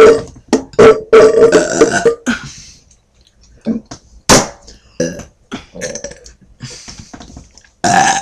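A person burping loudly: a long, drawn-out belch broken into several pulses over the first two seconds. Quieter short sounds follow, with one more loud, brief sound near the end.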